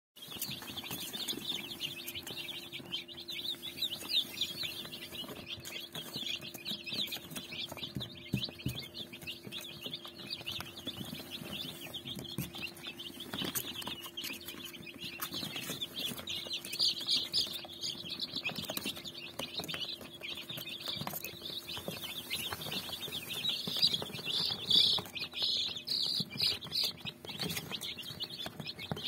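A boxful of young Brahma, Lohmann Brown and broiler chicks peeping nonstop, many short high chirps overlapping into a continuous chorus, loudest in the last few seconds.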